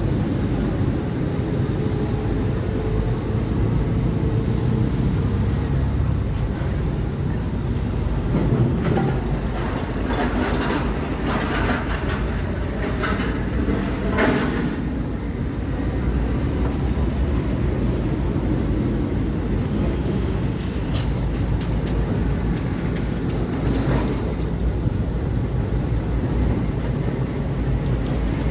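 Diesel engine of a heavy excavator running steadily with a low rumble. Metallic clanks and knocks come mostly between about 9 and 15 seconds in, with another near the end.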